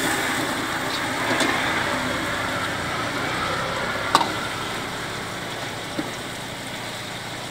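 Chicken masala sizzling and bubbling in a black wok over a gas flame, a steady hiss. A metal ladle stirring it clinks against the pan a few times, loudest about four seconds in.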